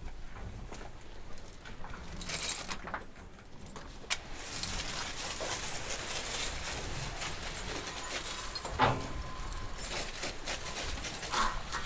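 Straw and feed being mixed together: steady rustling and scraping with metallic rattles, the loudest clatter about two seconds in.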